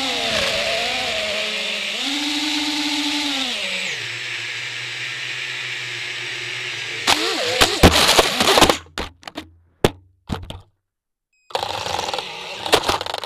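FPV quadcopter's brushless motors and propellers whining, the pitch rising and falling with throttle. About seven seconds in the props clatter against tree branches in a run of sharp strikes as the quad crashes, with the sound cutting out between hits, and a short noisy buzz of the props returns near the end.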